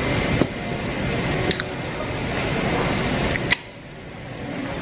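Steady restaurant room noise with a few sharp clicks, the last two close together about three and a half seconds in, after which the background drops suddenly and stays quieter.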